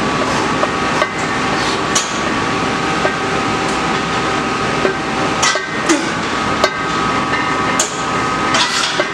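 Loaded barbell and its plates clanking irregularly during a set of back squats, a dozen or so sharp metallic clicks over the steady noise of a gym fan.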